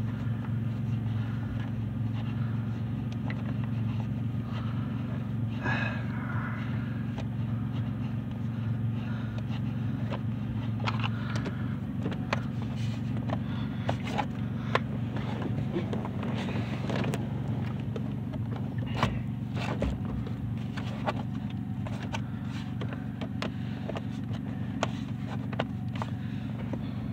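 A screwdriver clicking and scraping against small Phillips screws in a steering column's ignition housing, in scattered light ticks and short scrapes, over a steady low hum.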